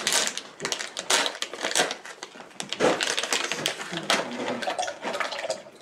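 Plastic packet of cashew nuts crinkling and rustling as nuts are shaken out of it into a blender jug, with many irregular clicks.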